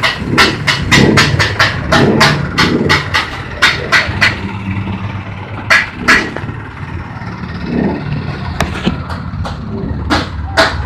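Stainless-steel feed mixer machine running with a steady motor hum. Sharp clacks come over it, about three a second for the first few seconds, then scattered.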